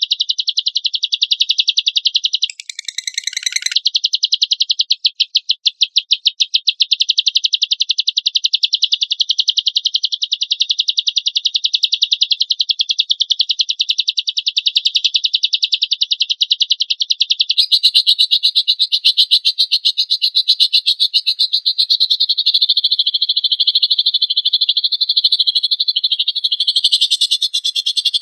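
Lovebird in a long, rapid chattering trill, a fast even run of high pulses. The pitch shifts briefly about three seconds in, and the trill turns rougher and noisier about two-thirds of the way through.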